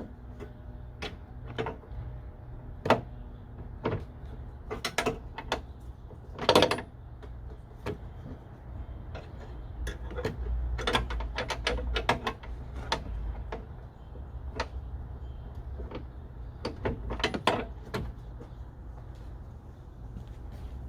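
Irregular clicks, clinks and knocks of hand tools on car body bolts and metal parts, over a steady low hum.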